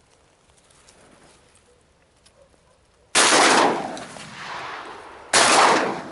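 Two shotgun shots about two seconds apart at ducks on a marsh pond. Each is a sharp report followed by a lingering echo that swells again about a second later.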